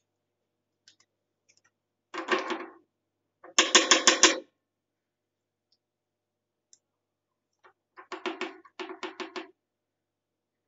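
Metal spatulas chopping rapidly on the steel cold plate of a rolled ice cream maker, in four short bursts of fast taps, the second the loudest.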